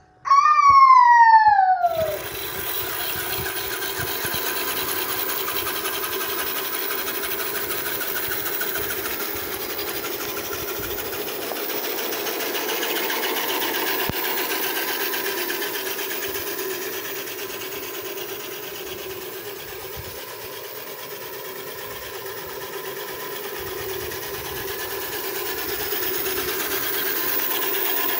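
A short falling-pitch sound effect over the first two seconds, then a radio-controlled Mercedes-Benz Atego model truck driving, its small motor and drivetrain running steadily.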